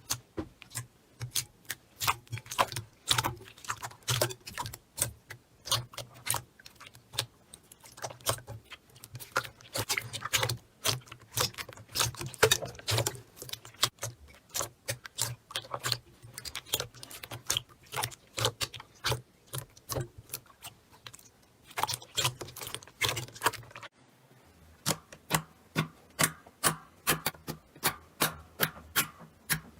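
Slime being squeezed and poked by hand, giving rapid, irregular sharp clicks and pops. There is a brief break about 24 seconds in, after which the clicks come more evenly.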